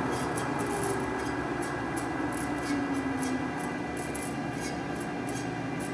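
DoAll horizontal band saw running, a steady mechanical hum with faint, irregular high ticks.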